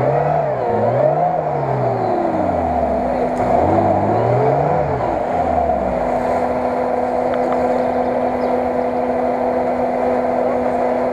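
Lada Niva (VAZ 2121) engine revving up and down about three times as the car drives through deep mud and water, the wheels churning and splashing. After about six seconds the engine holds at steady revs.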